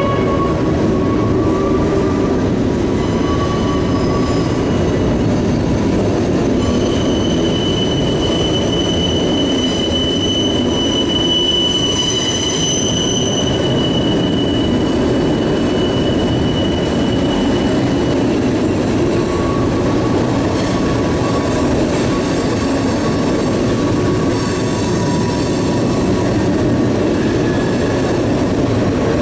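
Norfolk Southern mixed manifest freight train's boxcars rolling past: a steady rumble of steel wheels on rail, with thin, high wheel squeals that come and go, the strongest held for about ten seconds starting some seven seconds in.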